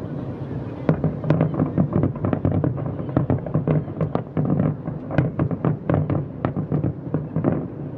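Distant fireworks shells bursting: an irregular run of sharp bangs and crackles, several a second, over a steady low background.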